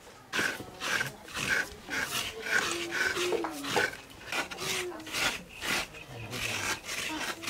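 Rhythmic hand scraping, about two rasping strokes a second, from food being prepared by hand.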